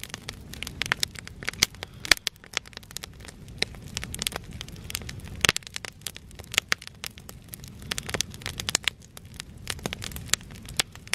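Wood campfire burning, crackling with frequent sharp, irregular snaps and pops.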